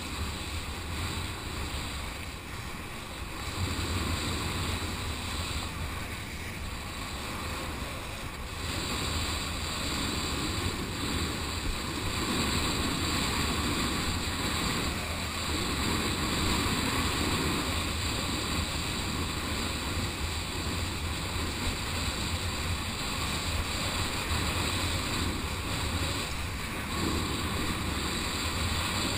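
Wind buffeting the action camera's microphone with a steady low rumble, over the rush and hiss of water as a kiteboard skims across the surface.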